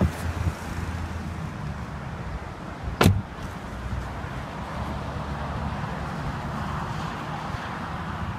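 Power-folding retractable hardtop of a 2014 Mercedes-Benz SL550 in motion: a steady low hum and electric-motor whirring, with one sharp loud clunk of the mechanism about three seconds in.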